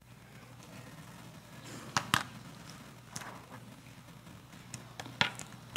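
Steady low room noise with a few sharp knocks: two close together about two seconds in, the loudest, and another near the end.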